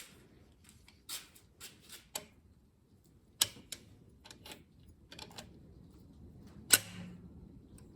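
Scattered sharp metal clicks and taps from pliers working at the hydraulic lifters in a big block Chevy engine, pulling them out of their bores. The loudest click comes about three-quarters of the way through.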